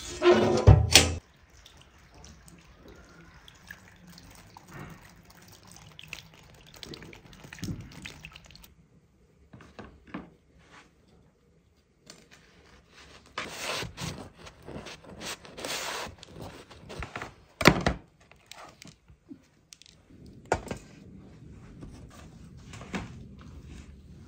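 A steel oven door shut with a loud knock about a second in. Later, a knife sawing through crusty homemade buns on a wooden cutting board in several stretches, with a sharp knock near the middle.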